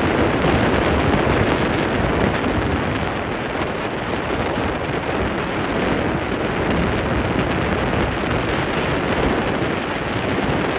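Wind rushing over the microphone aboard a ferry: a steady, loud rush with no breaks.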